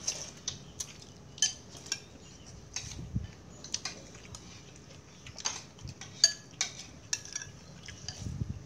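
Metal spoons clinking and scraping against ceramic bowls while eating, a string of irregular sharp clinks, the loudest about six seconds in, with a couple of dull knocks.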